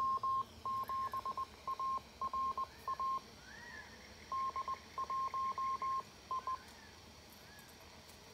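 Amateur radio repeater identifying itself in Morse code: a single high beep tone keyed in dots and dashes for about six and a half seconds, heard through a handheld transceiver's speaker.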